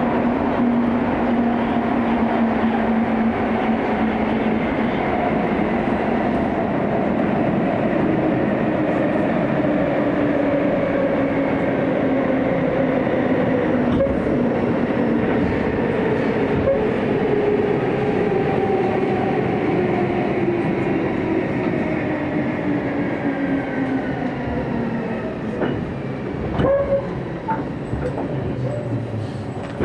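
Chiba New Town Railway 9000 series electric train heard from inside the passenger car, running through a tunnel and slowing for a station. Its motor tones fall steadily in pitch as it brakes, with a few clicks near the end.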